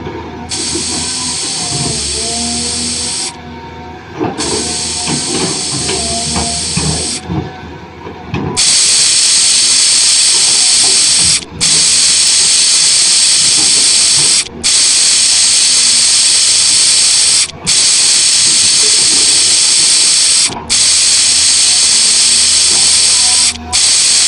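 A loud, steady hiss that starts and stops abruptly in blocks of about three seconds, running almost without break from about a third of the way in, cut by short gaps every three seconds.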